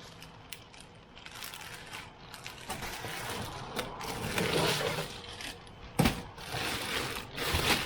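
Handling noises from a seat being moved and adjusted: irregular rustling and scraping, with a sharp click about six seconds in.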